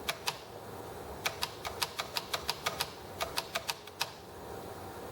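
Small sharp clicks from handling the sewing machine's parts: two near the start, a fast run of about ten clicks in the middle, a shorter run of about five, and one last click about four seconds in.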